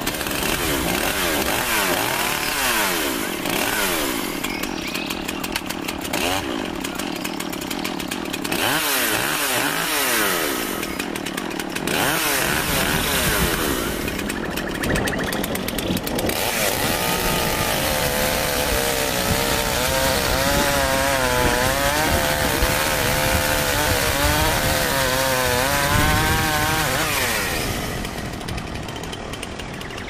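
Chainsaw engine running and revving, its pitch rising and falling over and over, then wavering quickly through the second half before easing off near the end.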